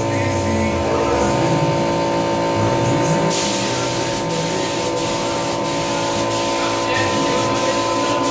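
Compressed-air spray gun hissing steadily as primer is sprayed, over a steady hum.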